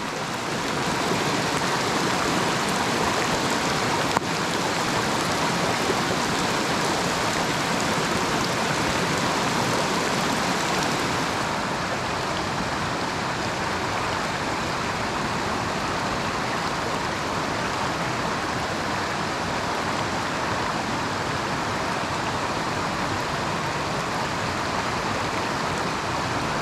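Steady hiss of heavy, pouring rain mixed with the rush of a mountain brook. There is a single click about four seconds in.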